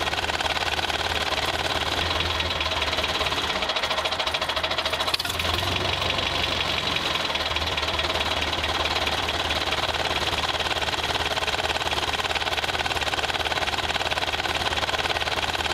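Small electric gear motor of a toy tractor whirring steadily under the load of a tow string, with a brief break in the sound about five seconds in.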